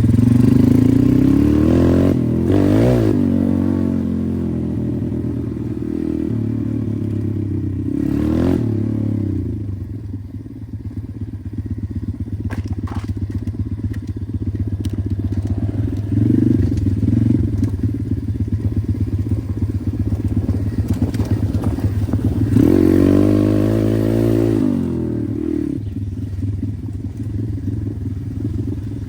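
Pit bike engine running while riding, revving up and falling back early on and again about three quarters of the way through, with some rattling and clicks.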